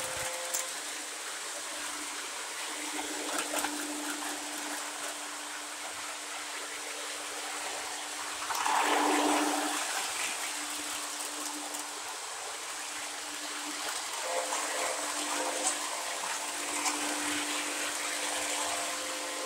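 Lionel O gauge model trains running on three-rail track: a steady rolling rumble and hiss of wheels and motors, louder for a moment about nine seconds in.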